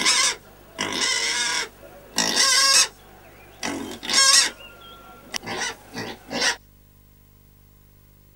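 Piglet squealing in about five loud, harsh calls, each up to about a second long, stopping suddenly about six and a half seconds in and leaving only a faint steady hum.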